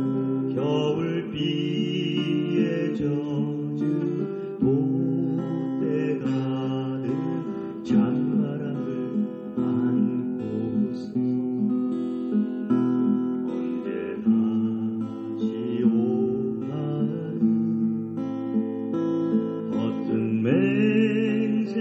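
Background music led by acoustic guitar, strummed and plucked, playing on without a break.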